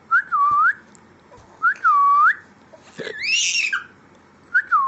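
Whistling: three short whistled notes, each dipping and then rising in pitch, with a higher, breathier squeal-like note rising in pitch about three seconds in.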